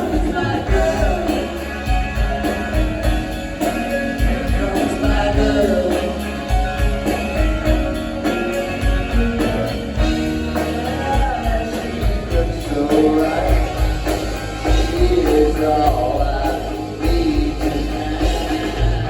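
Live rock band playing at full volume, drums keeping a steady beat, with a voice singing over the band.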